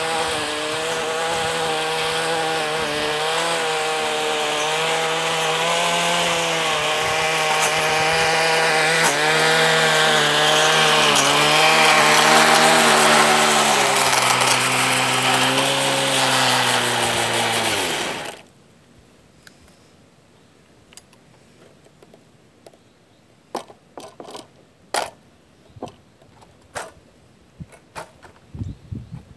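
Gas-powered stick edger running, its blade cutting along a concrete curb, with the engine then winding down and stopping after about 18 seconds. After that, only scattered light clicks and scuffs.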